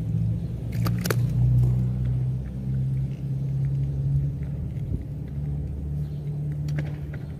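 A low, steady engine-like hum with shifting tones, with a couple of sharp clicks about a second in.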